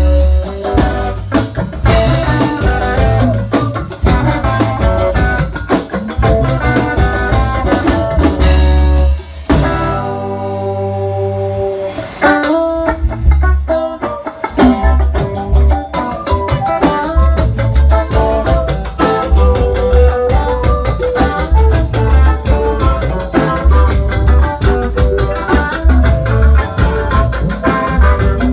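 Live band playing, with an electric guitar leading over a drum kit. About ten seconds in the drums drop out and held notes carry on for a few seconds. Then the beat returns, and from about sixteen seconds a steady cymbal pulse drives the full band.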